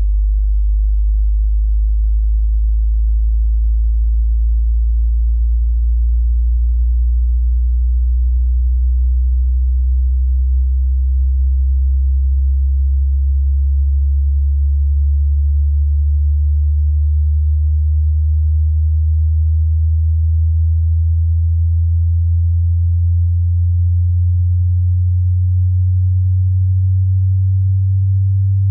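Hearing-test tone: a single pure, very low tone at a steady, loud level, gliding slowly upward in pitch from a deep hum to a somewhat higher low note as the test sweeps through the bass frequencies.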